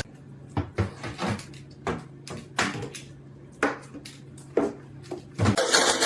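A series of irregular knocks and clatters, about nine in six seconds, over a low steady hum.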